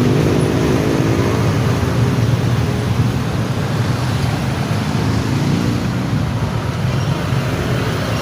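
Loud, steady rumble of passing vehicles, strongest in the low range.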